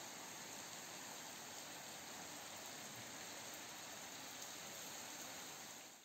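Steady rain falling, a faint even hiss that fades out near the end.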